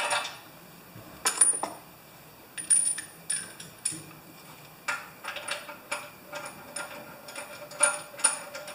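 Small metallic clicks and clinks from hand work on a pressure washer's gasoline engine: a few separate clinks early, then a quicker run of light ticks in the second half.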